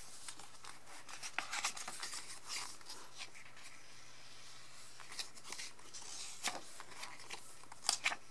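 Hands handling an album's photobook and turning its glossy pages: soft paper rustles and light taps, with a couple of sharper page flicks near the end.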